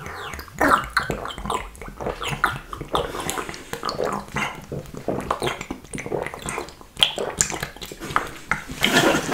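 A person drinking straight from a glass bottle, close to the microphone: a run of quick glugs and gulping swallows that grows louder near the end.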